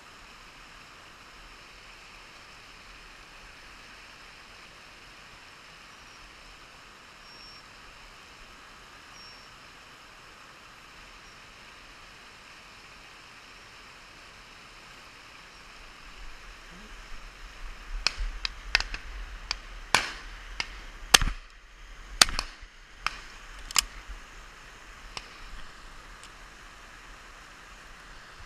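Steady rush of a hill stream, then, about two-thirds of the way through, a flurry of sharp clicks and knocks over several seconds, the loudest sounds here.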